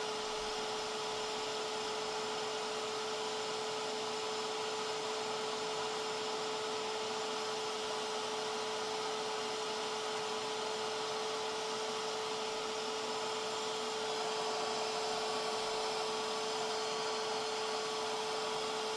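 Bissell Little Green HydroSteam spot cleaner running steadily with a constant hum while it heats up for steam, growing a little louder about two-thirds of the way through.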